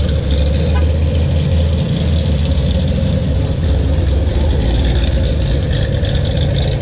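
Chevrolet Camaros driving slowly past at low revs, their exhausts giving a steady deep rumble.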